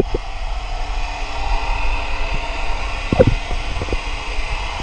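Underwater ambience picked up by a camera submerged in murky water: a steady hiss and low rumble with faint steady tones, broken by a sharp knock at the very start and a softer knock about three seconds in.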